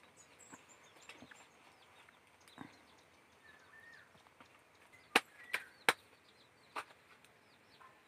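Quiet outdoor ambience with small birds chirping repeatedly in short falling notes. There are a few sharp clicks, three close together about five to six seconds in and one near seven seconds.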